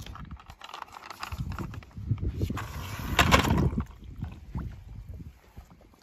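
A toy truck splashing and sloshing about in a plastic tub of water, with knocks and clicks against the tub. The splashing is loudest a little past the middle and dies down toward the end.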